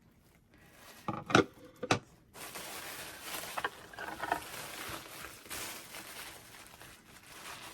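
A few sharp clicks about a second in, then several seconds of steady rustling and crinkling: a packaged resin tray being handled and unwrapped.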